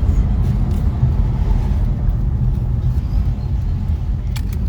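Steady low road rumble of a car driving, heard from inside the cabin, with a couple of faint clicks near the end.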